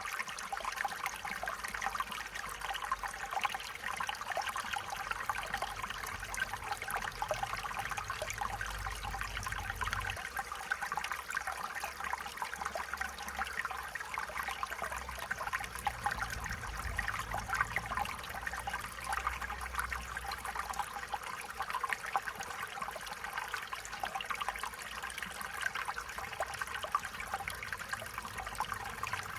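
Stream water trickling and babbling steadily over stones, a constant splashing with many small bright gurgles.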